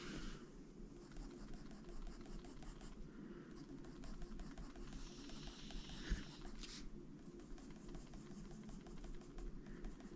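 Faber-Castell Polychromos coloured pencil scratching faintly on paper in small shading strokes, over a low steady hum, with a sharp click about six seconds in.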